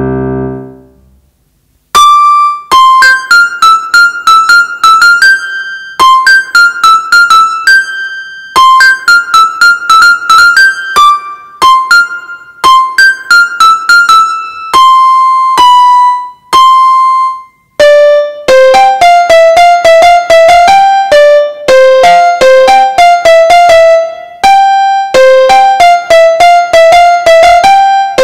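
Yamaha PSR-F51 portable keyboard played in one of its piano voices, heard straight from its line output with no room sound. A single-line melody high on the keyboard repeats a short phrase, and after a brief pause two-thirds of the way in the tune carries on in a lower register.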